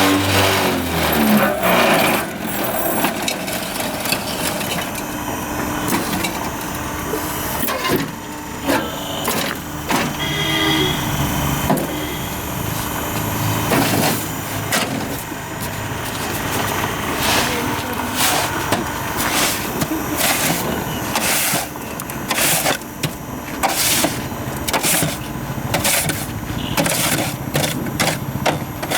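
Concrete hollow-block making machine at work: its motor winds down with a falling tone in the first second or two, then comes a steady din with irregular sharp knocks and clatter, the knocks coming several a second near the end.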